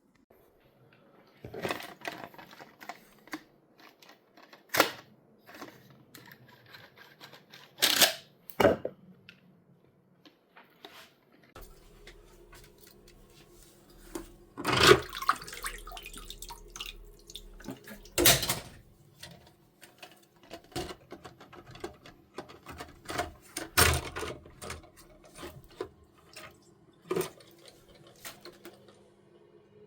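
Sharp plastic knocks and clicks of toilet cistern parts being handled and fitted. From about twelve seconds in, a steady hum of water running into the cistern through the replacement fill valve, with more knocks over it.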